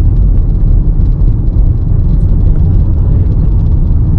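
Loud, steady rush of wind and road noise from a moving car, a low rumble buffeting the microphone.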